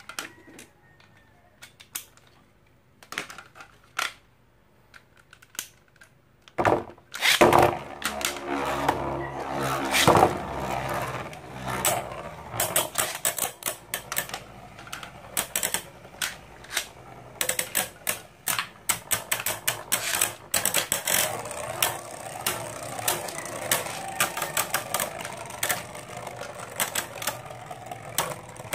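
Infinity Nado spinning tops battling in a clear plastic stadium: a few scattered clicks, then about seven seconds in the tops hit the arena and keep spinning with a steady whir. Their rings clack against each other and the bowl in rapid, irregular clicks.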